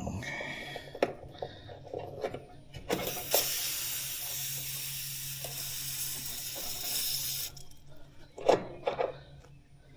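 Residual gas hissing out of an air-conditioning line's service port with the valve core removed: a steady rush that starts about three seconds in and cuts off after about four and a half seconds, as the last bit of pressure in the line set is let out. A few knocks from tool handling come before and after it.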